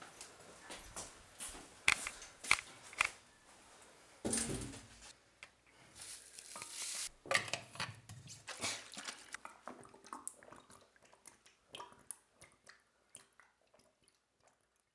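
Indoor handling noises: a run of irregular clicks and knocks, with a short burst of rushing noise about four seconds in and a longer one around six to seven seconds, tapering off near the end.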